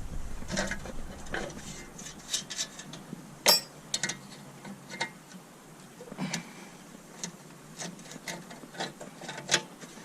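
Spanner undoing the nuts on a metal transformer box cover: irregular metallic clicks and knocks, the loudest about three and a half seconds in.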